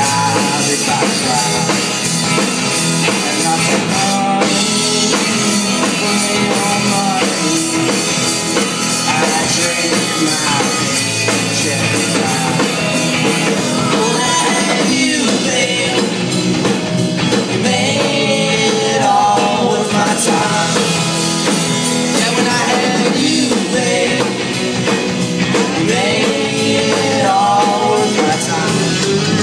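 Live rock band playing: electric guitar, electric bass and drum kit at a steady loud level.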